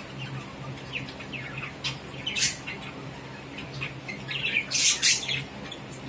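Caged budgerigars chattering: a string of short chirps, with a louder harsh squawk about two and a half seconds in and a louder burst of squawks near the end.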